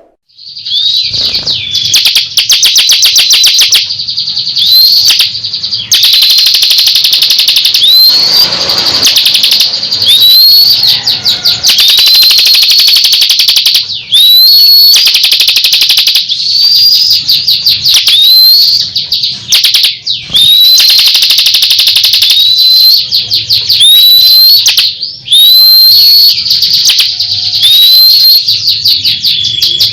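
Bar-winged prinia (ciblek kristal) singing loudly and without pause: rapid rattling trills alternate with clear up-slurred whistles, repeated every second or two.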